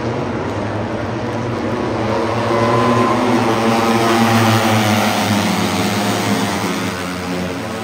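A pack of Moto3 race bikes, their 250 cc single-cylinder four-stroke engines at high revs, passing by. The sound swells to its loudest about halfway through, then fades as the pitch drops.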